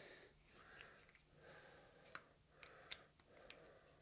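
Near silence broken by a few faint metallic clicks in the second half: an Allen key seating in and turning socket-head cap screws on a steel pump end cover as they are snugged down one by one.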